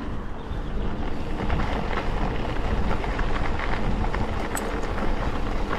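Wind buffeting an action camera's microphone during a mountain bike ride, a steady low rumble, with the tyres rolling over the dirt track and small rattles and knocks from the bike.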